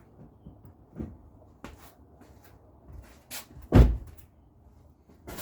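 Clicks and knocks from getting into the 2008 Audi A4 and pumping the brake pedal, with one heavy low thump nearly four seconds in.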